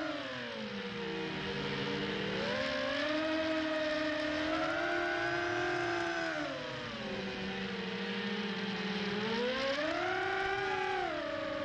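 FPV racing quadcopter's electric motors whining, the pitch falling and rising several times as the throttle changes.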